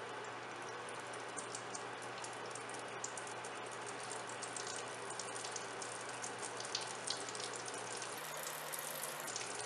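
Flour-coated chicken pieces deep-frying in hot oil in a wok: a steady sizzle with crackling pops that get busier toward the end.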